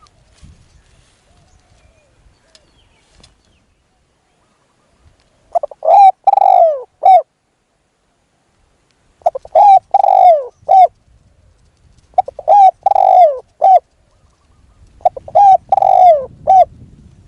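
Spotted dove cooing: four phrases about three to four seconds apart, each a short run of notes with a longer, falling middle coo.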